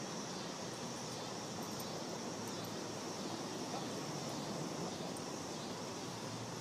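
Steady outdoor background noise, an even hiss and low rumble with no distinct events.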